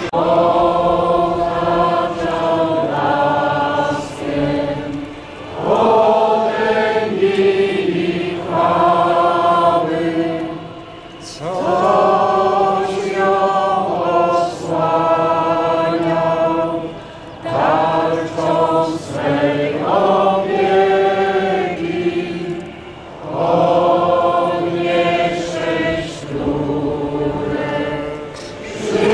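Crowd of marchers singing together in unison, in sustained phrases of a few seconds each with short breathing gaps between them.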